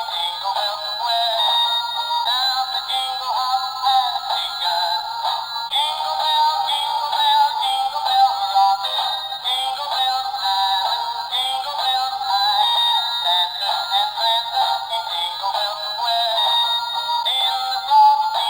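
A plastic toy playing a continuous, tinny electronic melody with a synthetic singing-like voice through its small speaker, with no bass.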